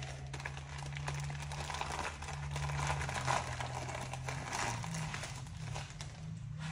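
Plastic packaging crinkling and rustling in irregular bursts as a new respirator is unwrapped by hand, over a low, steady hum.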